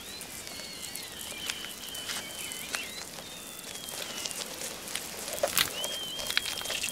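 Outdoor ambience: thin, high whistled bird calls, some held and some gliding, over a light hiss, with scattered sharp ticks and crackles that grow more frequent near the end.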